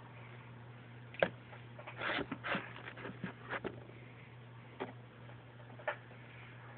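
A few light clicks and knocks, one about a second in, a quick cluster of them in the middle and two more single ones later, over a steady low hum.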